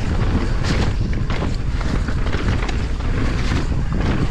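Wind buffeting the microphone and tyres rumbling over a dirt trail on a fast downhill mountain bike run, with the bike clattering over bumps several times.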